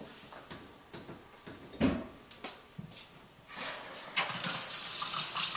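A few light knocks and clicks from handling the faucet, with one sharper knock about two seconds in, then water starts running from the tap about four seconds in as a steady rush: the repaired faucet turned on to test it.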